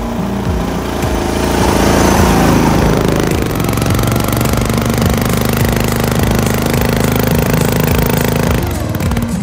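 Small engine of a lifted Craftsman riding mower running steadily as it churns through deep snow, with a louder rushing surge about a second in. The engine note drops away near the end.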